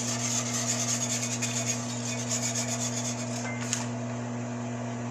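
Wire whisk beating coconut milk and soup seasoning in a wok: a fast, rhythmic scraping of the whisk against the pan that fades after about three and a half seconds. A steady low hum runs underneath.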